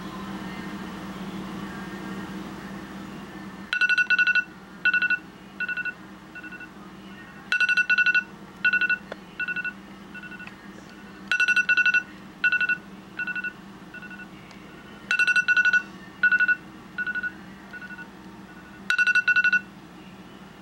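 iPhone alarm going off. About four seconds in, after a low steady hum, it starts with a rapid burst of pulsing beeps followed by single beeps that fade away, and this pattern repeats five times, about every four seconds.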